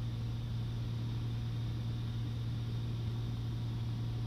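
Steady drone of a Piper Cherokee Six's six-cylinder Lycoming engine and propeller in flight, a constant low hum that does not change.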